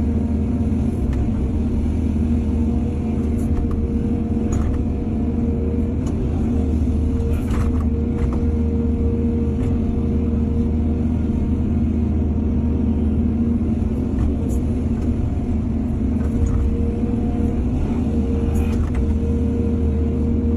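Heavy diesel engine of an excavator running steadily, with a constant higher whine over the low drone. A few sharp knocks and clanks stand out at irregular moments.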